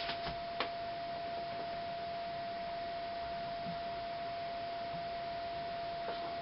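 A steady, even tone held at one pitch over a background hiss, with a single soft click a little over half a second in.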